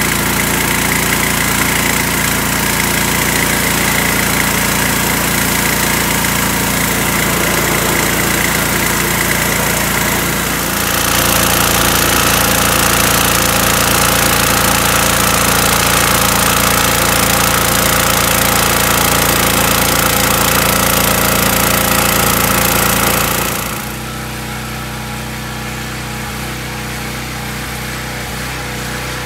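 Simpson 3200 psi gas pressure washer with a Kohler engine running steadily. It gets louder about eleven seconds in and drops back somewhat about twenty-four seconds in.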